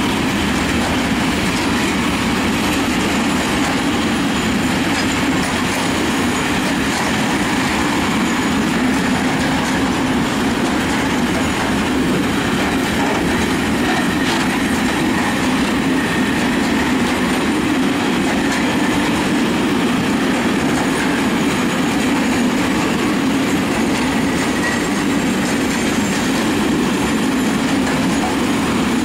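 Freight train of open-top coal wagons rolling past at close range: a steady, loud rumble and clatter of steel wheels on the rails, with a faint high squeal at times.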